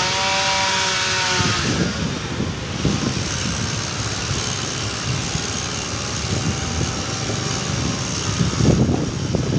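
A small motorcycle engine accelerating past close by, its pitch rising and then holding for about a second and a half, followed by steady mixed engine noise.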